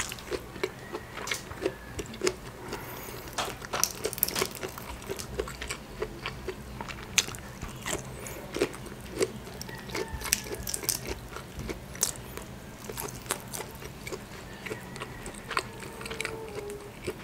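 Close-miked eating sounds: wet chewing and lip smacks mixed with sharp clicks and crackles of shrimp shell being picked and peeled by sauce-covered fingers. A faint steady low hum sits underneath.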